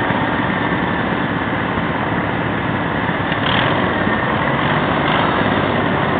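Riding garden tractor's small engine running steadily while it drives through shallow creek water, with water splashing around the wheels.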